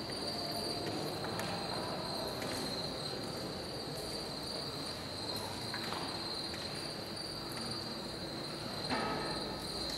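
Steady, high cricket chorus played over the theatre's sound system as part of the performance's soundscape, with a couple of brief soft swishes in the second half.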